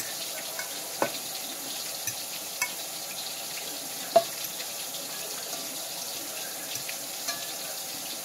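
Steady hiss from the wok simmering on the stove, with a few sharp clicks of a utensil against the plate as cooked eggplant strips are laid on it. The loudest click comes about four seconds in.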